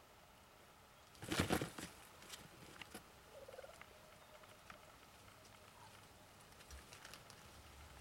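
Wild turkey tom gobbling once, a loud rapid rattling call about a second in, followed a couple of seconds later by a short, softer wavering call.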